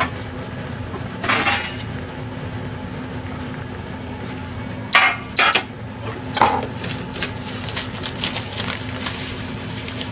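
Metal kitchenware clattering on a stainless steel counter as a metal baking tray is set down and bowls are moved: several sharp knocks in the first seven seconds. After that comes a rapid crackling rustle as a plastic bag of panko breadcrumbs is shaken and the crumbs pour onto the tray, over a steady low hum.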